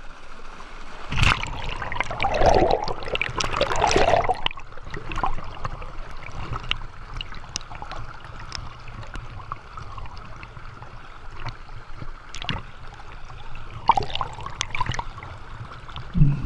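Shallow river current running over logs in a small cascade, heard close up. A louder stretch of splashing comes about a second in and lasts a few seconds, with scattered small clicks and knocks, and for part of the time the microphone is under the surface.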